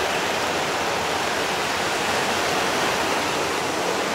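Lionel O gauge model trains running on three-rail track: a steady rushing rumble of wheels on the steel rails and the locomotive motors, with freight cars rolling close by.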